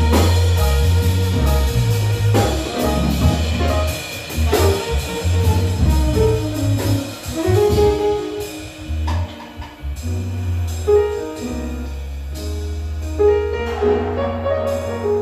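Jazz quartet playing live: saxophone, grand piano, electric bass guitar and drum kit. The cymbals and drums are busy for the first eight seconds or so, then thin out, leaving bass and piano to carry on.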